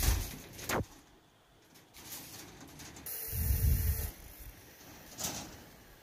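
Steel reinforcing bars knocking as they are laid: a sharp knock at the start and another just before a second in, then a fainter one about five seconds in. A soft low sound about three to four seconds in.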